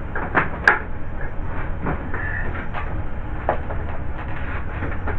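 Irregular plastic clicks and rattles as power-supply cables and a connector are handled and pushed onto a motherboard inside a PC case, with one sharp click a little under a second in, over a steady low hum.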